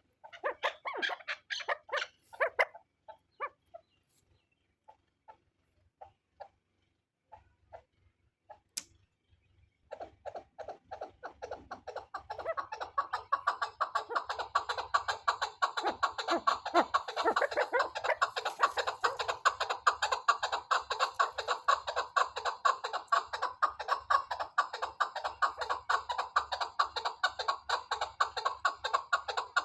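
Chukar partridge calling: a burst of quick chuck notes, then sparse single notes, then from about ten seconds in a fast, unbroken run of chuck notes that carries on steadily.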